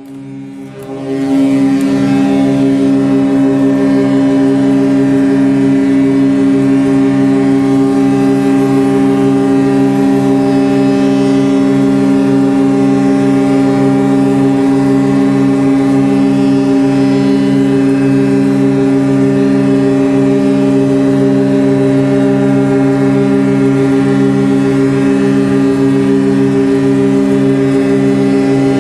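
Ship's fog horn sounding one long, low, steady blast. It swells up over the first second or so, then holds with a slow wavering in its tone.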